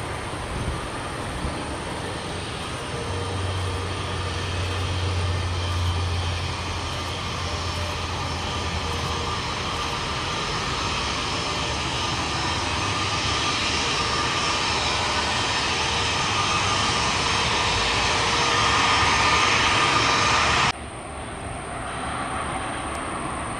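CN-235-220 military transport's two General Electric CT7 turboprop engines during landing and rollout, a steady engine drone that grows louder and brighter. It cuts off suddenly near the end and gives way to the quieter sound of an Airbus A320 jet on approach.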